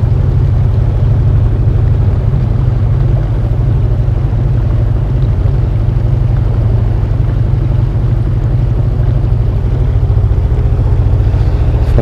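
Outboard motor driving an inflatable boat at a steady cruising speed: a constant low drone that does not change.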